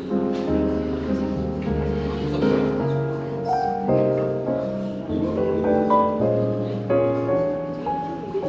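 Smooth jazz piano music: held piano chords over a bass line that changes note about every second.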